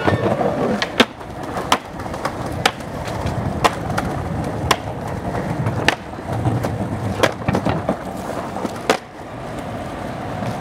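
Skateboard wheels rolling on concrete, with about ten sharp clacks spread through as the board and trucks strike and grind a concrete curb ledge.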